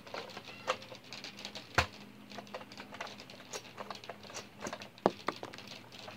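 Scattered light clicks, taps and rustles of people moving about and handling plastic toy blasters, with a sharper knock about two seconds in and a couple more around five seconds, over a faint steady hum.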